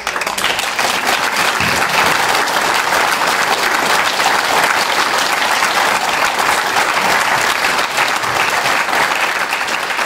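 Audience applauding: many hands clapping in a dense, loud patter that starts suddenly.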